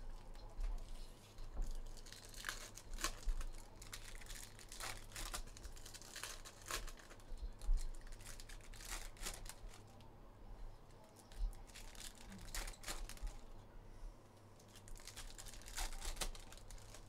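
Foil wrappers of Panini Donruss Optic trading-card packs crinkling and tearing open as the packs are unwrapped by hand, with cards being handled, in a run of irregular crackles and rips.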